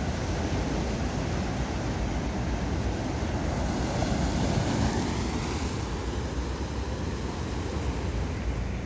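Small sea waves breaking and washing up a sandy beach, a steady rush with a slight swell about halfway through, under wind buffeting the microphone.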